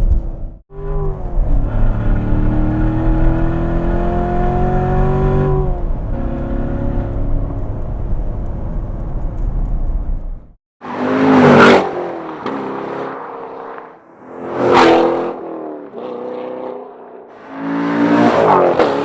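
Chevrolet Corvette C7's V8 running through a Borla aftermarket exhaust: a sustained hard run with the engine note climbing slowly in pitch and easing once midway. After a short break come three fast pass-bys about three seconds apart, each swelling to a peak and dropping in pitch as the car goes past.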